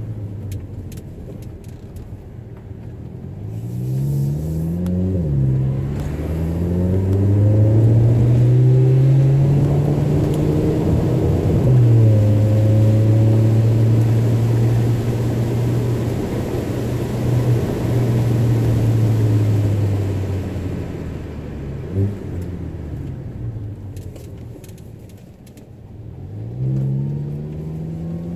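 Audi A3 with a muffler delete and performance resonator, heard from inside the cabin: the exhaust note climbs in pitch under acceleration, drops at two upshifts, holds steady at cruise, then sinks and quietens as the car slows before climbing again near the end. A single sharp click comes a little past the middle.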